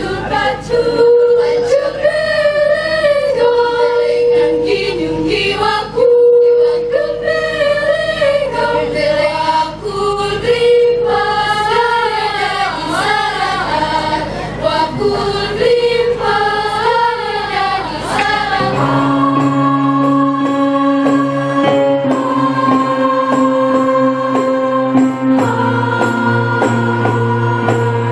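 Female choir singing a lively, moving melody in parts, with a regular clapped beat. About two-thirds of the way through the sound cuts abruptly to slow, long-held chords sung in harmony.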